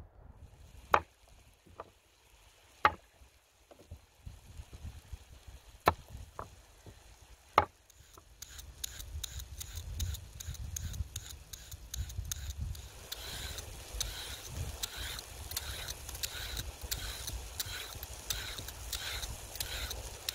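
Metal Y-peeler scraping strips off a parsley root and then a carrot, in quick repeated strokes that grow louder and settle to about two a second. Before the peeling starts there are a few scattered sharp clicks.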